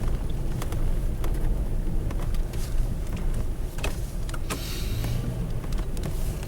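Semi trucks running, a steady low rumble with scattered clicks. A brief hiss comes about four and a half seconds in.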